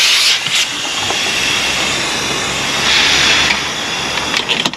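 Compressed air hissing out of a pipe-repair inflation packer (balloon) as its pressure is let off, deflating it once the patch has cured. The steady hiss swells about three seconds in and dies away near the end, with a few short clicks.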